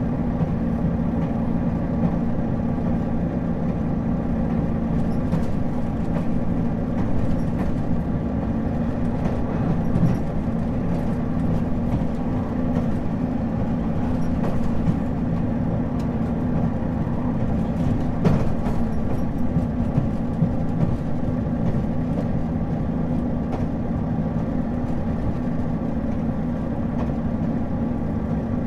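JR Shikoku 2000 series diesel railcar running, heard from inside the car: a steady engine hum with scattered sharp clicks and knocks.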